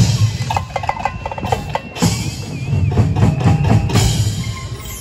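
Percussion-heavy show music: low drum beats, a run of quick clicks about a second in, and a wavering high note a little later.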